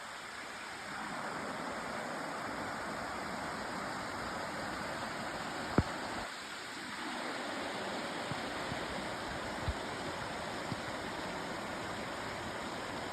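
River water rushing steadily, with one sharp click about six seconds in.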